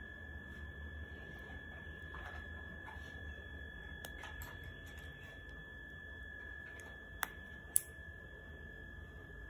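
A steady high-pitched electrical whine over a low hum. Faint taps and then two sharp small clicks about half a second apart near the end come from hands handling a hair clip and a ribbon rose.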